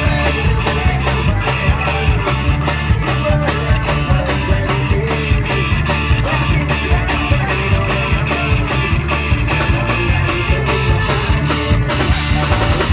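Live folk-punk band playing a fast, steady passage, with fiddle over guitars and a driving drum beat.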